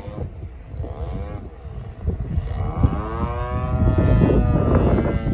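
Model airplane's motor and propeller droning overhead, its pitch swinging up and down as the plane manoeuvres and growing louder in the second half, with wind buffeting the microphone.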